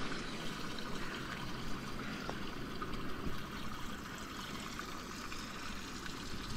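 Steady rushing and trickling of running water.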